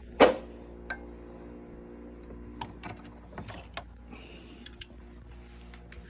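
Clinks and taps of metal suppressor and muzzle parts being handled: one louder knock about a quarter second in, then a scatter of small clicks.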